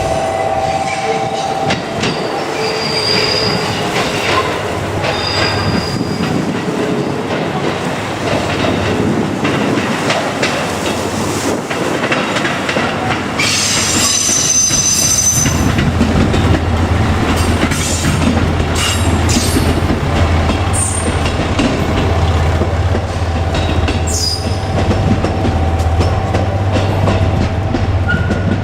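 JR Kyushu KiHa 200 diesel railcar running on the line, its wheels squealing high on the rails a few times, longest about halfway through. A heavier low rumble from the train builds from about halfway and stays.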